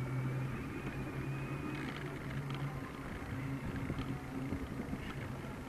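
Mountain bike rolling over paving, a steady low hum with a few small knocks and rattles. A distant siren fades out about two seconds in.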